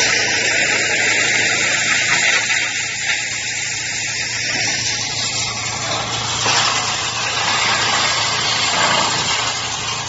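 Drum wood chipper running: a steady, loud mechanical rush from its drum and drive.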